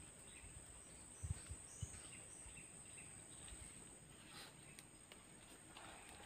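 Near silence: faint riverside ambience with a steady high-pitched insect drone and a few faint bird chirps. Three soft low thumps come a little over a second in.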